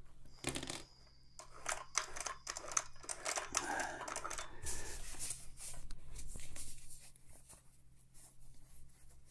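Plastic crinkling and rustling from a small grease container squeezed and handled by hand while the sewing machine's gears are greased, with irregular light clicks.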